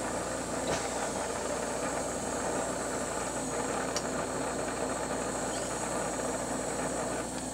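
Glassblowing bench torch flame hissing steadily, with a faint tick or two.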